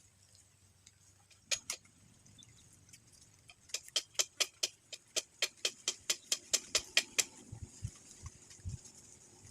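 Two sharp clicks, then a quick, even run of clicks at about five a second for three to four seconds, followed by a few low thuds near the end.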